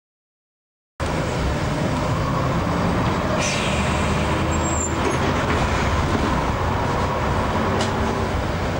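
Bus engine running and road noise heard from inside the moving bus, a steady hum that starts suddenly about a second in, with a couple of brief rattles or clicks.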